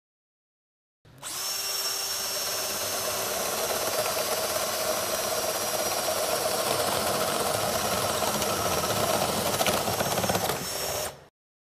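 Power drill spinning an Irwin 4X flat (spade) wood bit as it bores into wood. The motor whines steadily with a rough cutting noise for about ten seconds, starting about a second in and cutting off abruptly near the end.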